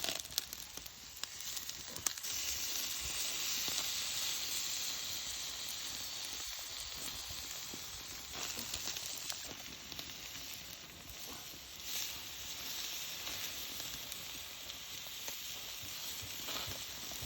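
Pork intestines sizzling as they fry, a steady hiss with a couple of sharp pops in the first two seconds.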